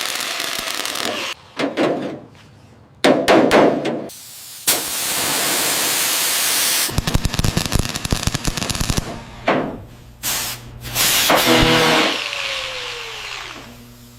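A quick succession of short workshop noises: hissing, sharp knocks and a stretch of dense crackling. Near the end a motor-driven tool spins down with a falling whine.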